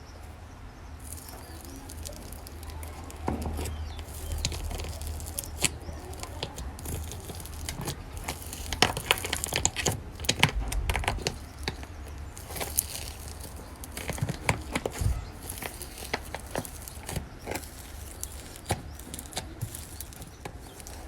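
Slime being squeezed and stretched by hand, giving an irregular stream of small sticky clicks, pops and crackles, busiest in the middle, over a low steady hum.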